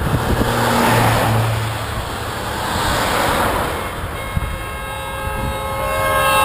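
A van and cars driving past one after another, their engine and tyre noise swelling and fading twice. About four seconds in, a horn starts sounding and grows louder, its pitch sliding slightly down near the end.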